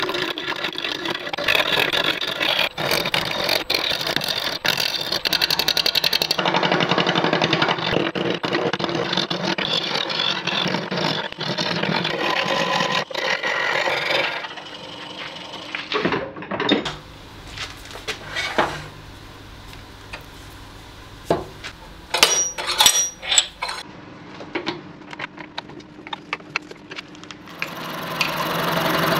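Gouge cutting a spinning applewood blank on a Laguna wood lathe: a loud, dense scraping and shaving noise for about the first half. The cutting then stops, giving way to a quieter stretch of scattered knocks and clicks, and near the end the lathe runs up again.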